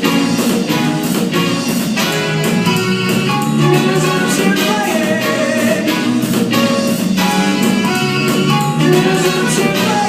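Upbeat music with a steady beat, instruments and some singing.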